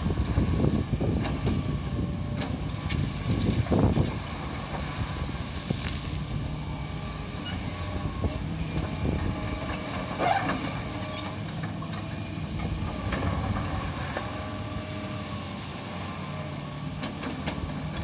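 Fiat Kobelco EX355 crawler excavator working gravel: its diesel engine runs under load with a steady, slightly wavering whine from the machine, while the bucket scrapes and the gravel clatters. The clatter is loudest in the first four seconds, peaking just before the fourth second, then eases into a steadier running sound as the arm swings the load.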